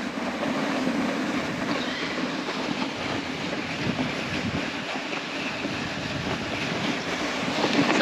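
Sledge runners sliding over snow as the sledge is pulled along, a steady scraping noise.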